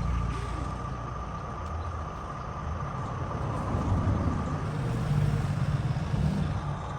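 Radio-controlled construction model (excavator or dump truck) running: a steady high motor whine over a low, uneven rumble that swells and fades, with a brief mid-pitched tone about five seconds in.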